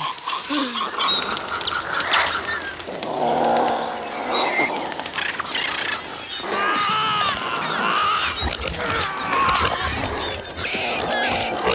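Film sound of a swarm of small Procompsognathus dinosaurs (compys) attacking a man: many rapid high chirps, squeaks and hisses layered over one another, with pained cries from the man.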